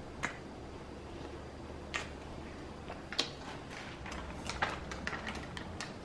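Quiet mouth sounds of someone biting into and chewing MRE bread spread with peanut butter: a few short, sharp clicks and smacks at irregular intervals over low room noise.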